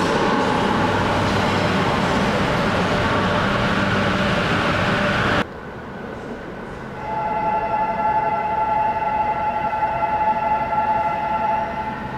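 Bombardier Advanced Rapid Transit light-metro car running past close by with a loud, even rushing noise that cuts off suddenly about five seconds in. After a quieter gap, a steady high whine of several tones held at one pitch comes in as another car approaches along curved elevated track.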